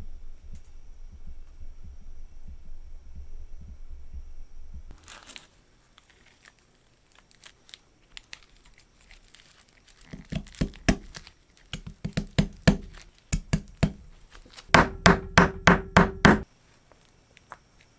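A low steady rumble for about five seconds, then a run of sharp hard knocks that come quickly, about four a second, near the end.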